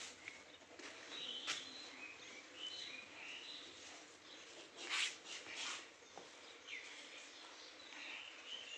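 Small birds chirping faintly in short, scattered calls. Two brief louder noises, like a rustle or knock, break in about a second and a half in and around the middle.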